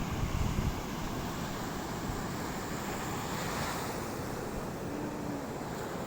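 Sea surf washing against the shore, with wind buffeting the microphone; a wave surges in about halfway through.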